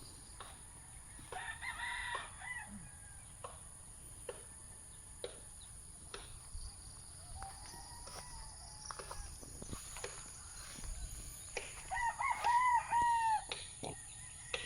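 A rooster crowing twice: a faint crow about two seconds in and a louder, drawn-out crow near the end, over scattered small clicks and knocks.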